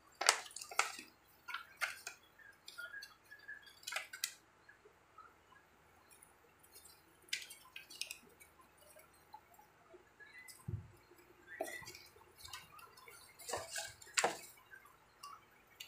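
Paper rustling and crackling as a printed instruction manual and leaflets are handled and their pages flipped, in irregular short bursts. A soft thump comes about two-thirds of the way through.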